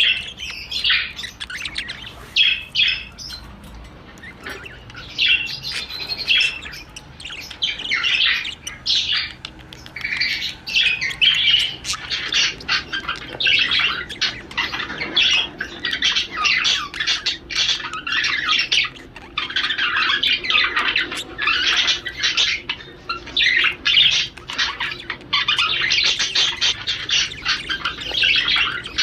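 Male budgerigar chattering warble, a fast, continuous run of squawks, chirps and clicks: the courtship song a male budgie sings when in breeding condition.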